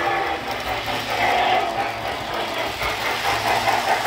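O gauge three-rail model steam locomotive, its tender and cars running along the track, giving a steady whirring rumble of motor and wheels on rail that grows a little louder as the train passes close near the end.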